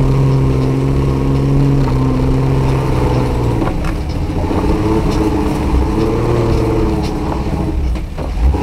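Off-road car's engine heard from inside the cabin, driving under load on a rough dirt track. The engine note holds steady, drops about a third of the way in, then rises and falls again, with a few knocks from the suspension over bumps and a brief thump near the end.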